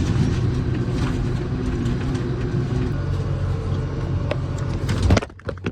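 Vehicle engine running steadily with road and cab noise, which cuts off suddenly about five seconds in.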